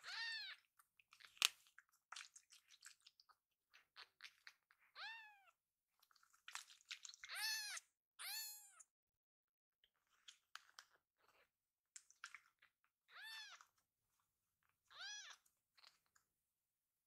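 Baby tabby kitten mewing: about six short, high-pitched mews, each rising then falling in pitch, a few seconds apart. Soft clicks and ticks between them, with one sharp click about a second and a half in.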